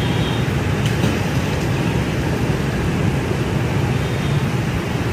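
Steady traffic noise from a dense stream of motorbikes and scooters riding past: a continuous rumble of many small engines with no break.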